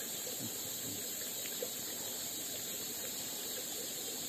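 Steady outdoor ambience: an even hiss of running water, with a constant high insect drone over it.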